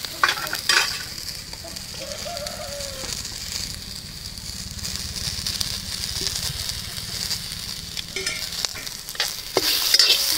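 Peanuts, lentils, chillies, onions and tomato frying in a little oil in an iron kadai: a steady sizzle, with a spatula stirring and scraping through the mix, clicking against the pan near the start and again near the end.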